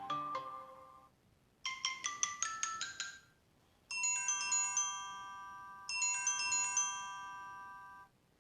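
Samsung Galaxy S7 stock ringtones playing in turn. One tune ends, then a quick run of short chiming notes, then a ringing chord struck twice that slowly fades.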